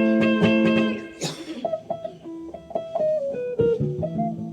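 Guitar intro: a chord strummed in rhythm and left ringing for about a second, then a short noisy swipe and a line of single picked notes that mostly step down in pitch.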